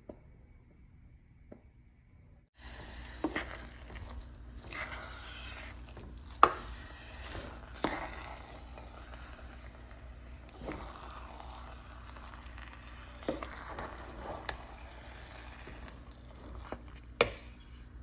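A spoon stirring thick, sticky glutinous rice cooked in coconut milk and brown sugar in a stainless-steel pot, over a steady low sizzle. Several sharp knocks of the spoon against the pot come through, the loudest about six seconds in and another near the end.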